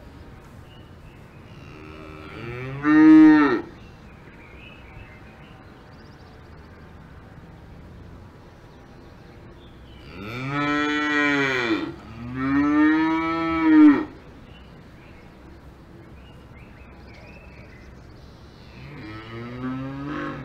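Cows mooing: four long moos, each rising and then falling in pitch, the first a few seconds in, two back to back midway, and one near the end.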